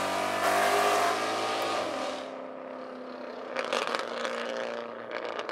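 Two street-racing cars, one a 3V Mustang's 4.6-litre V8, running hard as they pull away down the road; the engine sound drops and fades about two seconds in as they recede. A spell of crackling comes about three and a half seconds in.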